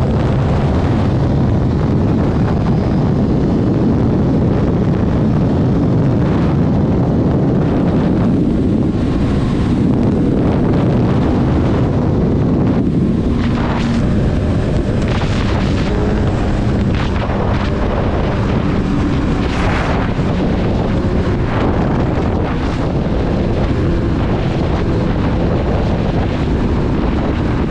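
Wind roaring over the microphone while riding a Honda CBR1000RR at highway speed, with the bike's engine running steadily underneath.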